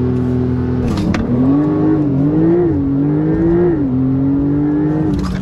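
Porsche 911 Turbo S twin-turbo flat-six heard from inside the cabin, holding steady revs and then, about a second in, accelerating hard: the note climbs and drops back several times as the gearbox shifts up. A sharp click comes as the acceleration starts.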